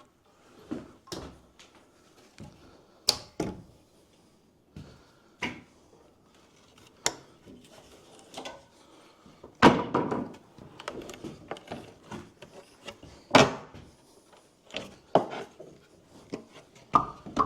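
Old, dry wooden boards being pried and broken off a wall: irregular knocks and cracks, with a heavier crash and clatter of falling wood about ten seconds in and another sharp hit about thirteen seconds in.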